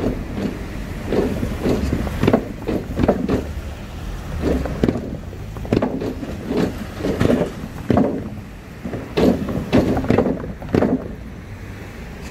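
Wooden plank decking of a disused railway level crossing clunking and rattling under the wheels of passing cars and small trucks: a string of uneven knocks and thuds, one cluster after another as each axle rolls over the boards. This clatter ("덜그덕") is the noise that carries to the nearby apartment blocks all day.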